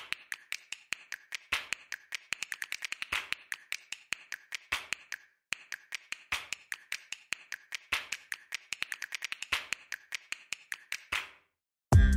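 Kitchen knife slicing cucumber, tomato and beetroot on a plastic cutting board: quick runs of sharp taps, several a second, with a short pause about halfway through, stopping near the end.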